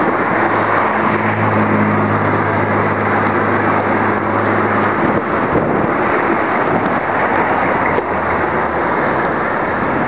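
Loud, constant wind buffeting the microphone of a camera on a moving bicycle in traffic, with road and traffic noise underneath. A steady low hum from a nearby vehicle engine sits under it for about the first half, then fades to a fainter low drone.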